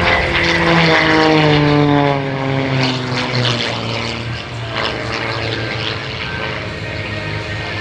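Edge 540 aerobatic plane's piston engine and propeller in flight, the engine note falling in pitch over the first few seconds as the plane passes, then running steadier.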